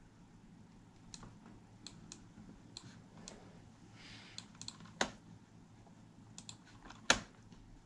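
Computer mouse buttons clicking now and then: a scatter of light clicks, with two louder clicks about five and seven seconds in.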